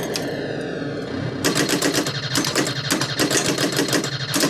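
1980 Williams Firepower pinball machine in play: its electronic sound effects sweep down in pitch, then about a second and a half in give way to a fast, even rattle of clicks, about five a second.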